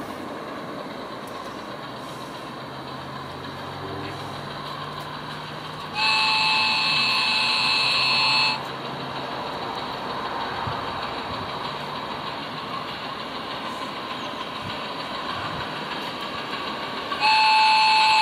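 Two blasts of a steam-whistle sound effect from a battery-powered, radio-controlled gauge 1 model locomotive's sound unit: a long one about six seconds in and a shorter one near the end. Each starts and stops abruptly. A steady background noise runs underneath.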